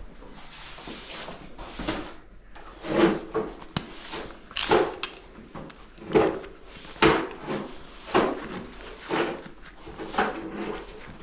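A hand flaring tool being turned down on the end of copper oil-line tubing to form a flare, creaking in short irregular strokes about once a second.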